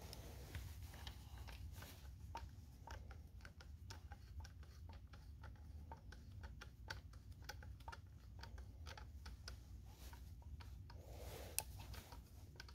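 Faint, irregular small clicks and taps of hands and a tool working a part off the clutch side of a Husqvarna 350 chainsaw, with one sharper click near the end.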